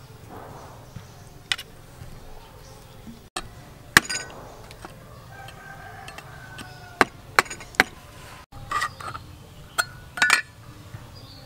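A cleaver striking the lid of a tin can and cutting into it, a series of sharp metallic knocks and short scrapes, the loudest about four seconds in. In the first few seconds a knife slicing tofu gives a single light tap against the plate.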